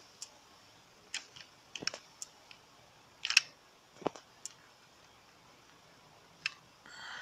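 Handling noise: sporadic light clicks and taps of plastic from the opened hull of a toy RC boat, with one sharper click about three and a half seconds in.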